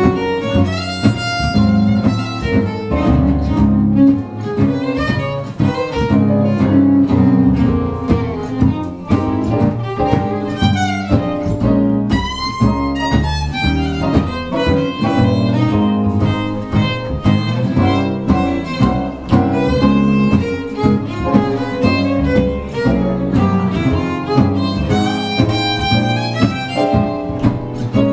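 Jazz violin solo in fast runs of bowed notes, backed by a swinging rhythm section of guitar and bass.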